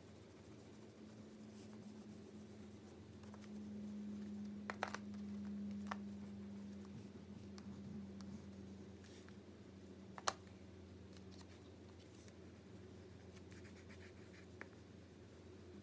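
Faint scratching and handling of drawing materials on paper and cardboard over a steady low hum, with a few sharp clicks, the loudest about ten seconds in.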